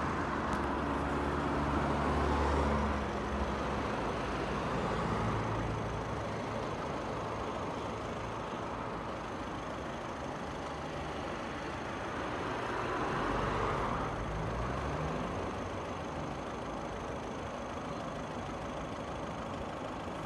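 Road traffic with vehicle engines running, loudest in the first few seconds, and one engine note rising about thirteen seconds in.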